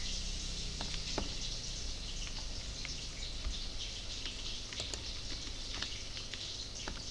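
Scattered light clicks of a computer mouse and keyboard as someone works in a 3D modelling program, over a steady hiss.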